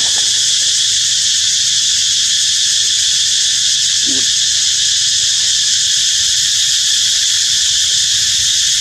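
Loud, steady chorus of insects, a continuous high buzz with no breaks.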